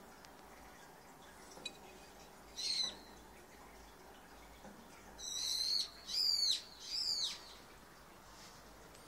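A bird calling: one short high call about two and a half seconds in, then three calls in quick succession, each dropping in pitch.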